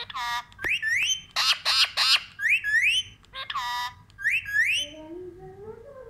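Caged ring-necked parakeet giving a rapid run of loud, shrill calls, many rising sharply in pitch, with a few harsh rasping screeches in the middle. A softer, lower rising tone follows near the end.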